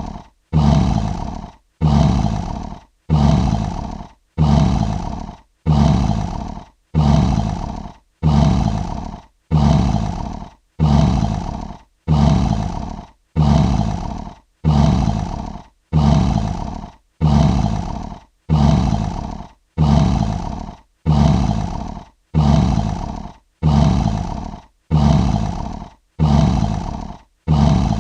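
Lion roar sound effect: a short roar, loudest at the start and fading over about a second, repeated as an identical loop roughly once a second with a brief silence between.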